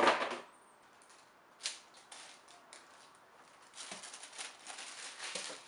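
Handling of a cardboard shoe box and its packaging: a thump at the start, a single click a second and a half in, then a run of rustling and crinkling as a black boot is pulled out and lifted up.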